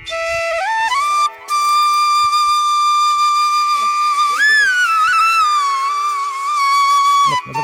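Music: a slow solo melody on a flute-like wind instrument, with long held notes and sliding ornaments, briefly cutting out about a second and a half in.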